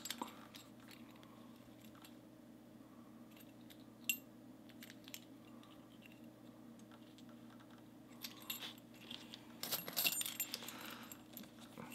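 Round-bodied brass American padlock handled with its key. One sharp metallic click comes about four seconds in, and a run of clicking and key jangling follows from about eight seconds in to near the end.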